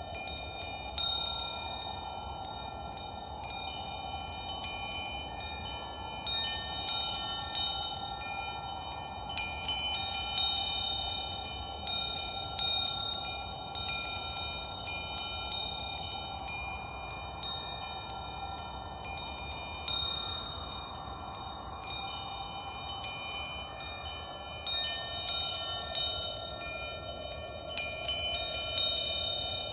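Wind chimes ringing, struck irregularly, with several high tones overlapping and ringing on, and a cluster of stronger strikes about nine seconds in and again near the end. A soft whooshing sound swells and fades beneath them.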